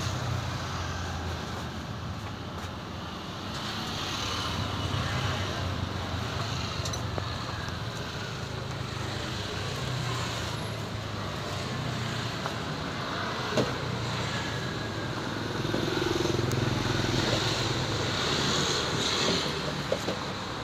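Street traffic: cars and motorcycles passing on the road, with a steady low rumble that swells about four seconds in and again from about sixteen seconds. A couple of sharp knocks stand out briefly.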